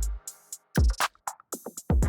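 Background electronic music with a drum-machine beat. The bass drops out just after the start, leaving a few short hits, and comes back in near the end.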